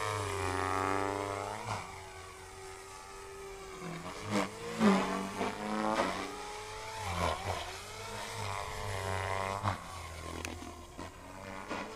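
Electric Mini Protos RC helicopter in flight: the motor and rotor whine glides up and down in pitch as it manoeuvres, with a few louder swells around the middle.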